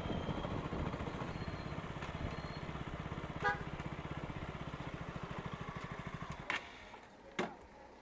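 KTM Duke's single-cylinder engine idling with an even low pulse, then switched off about six and a half seconds in. A short horn beep sounds about halfway through, and two sharp clicks follow the engine stopping.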